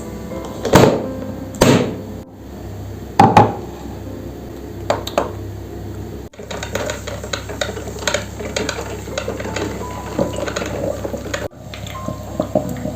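Kitchenware being handled: a few sharp knocks in the first few seconds, then a run of light clinks and clatter, over soft background music.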